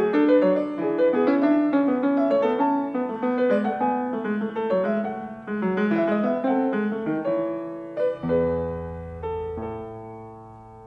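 Piano music, a flowing run of notes that slows about eight seconds in to a few low chords, which ring on and fade away.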